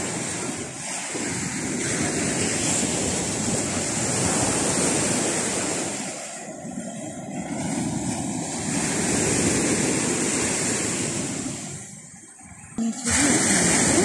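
Baltic Sea surf breaking and washing up a sandy beach: a steady rushing that swells and eases with the waves, dipping briefly near the end. The sea is rough.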